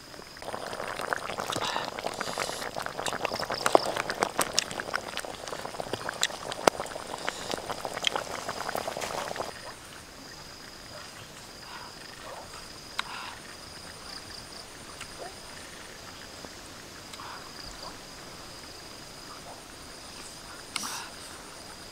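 A metal spatula scraping and clinking against a wok of simmering curry over a wood fire, with dense clicking, for about ten seconds. Then it cuts to a quieter steady high-pitched chirring of insects, with a few small ticks.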